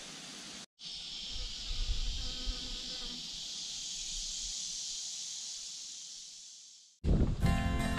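Steady high-pitched drone of a summer insect chorus, cutting out briefly under a second in and then fading away near the end.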